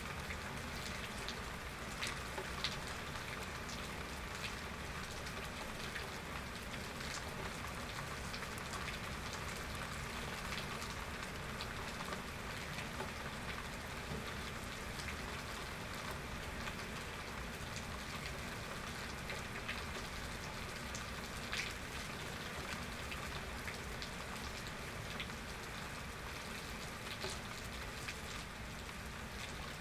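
Steady rain falling during a thunderstorm, with individual drops ticking sharply on nearby surfaces now and then.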